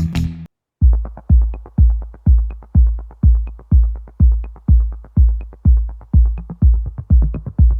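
Background electronic music: after a brief break near the start, a steady deep kick-drum beat about two beats a second with a faint high tick on top.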